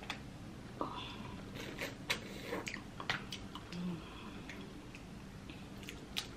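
Boiled crawfish being peeled by hand: a scatter of small shell cracks and clicks with wet, sticky squishes, busiest and loudest about two seconds in, with one more sharp crack near the end.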